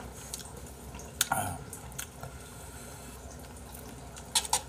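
Metal spoon clinking against a bowl of soupy jjamppong rice while eating: one click about a second in and a quick run of three or four clicks near the end.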